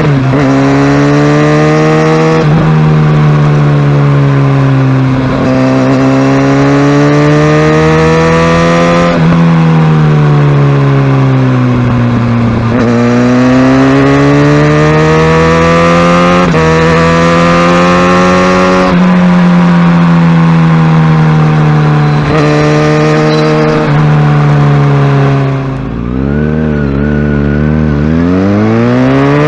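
Kawasaki Ninja ZX-6R's inline-four engine running under way, its pitch rising and falling with the throttle and dropping abruptly at several gear changes. About 26 seconds in it briefly goes quieter and lower before revving back up.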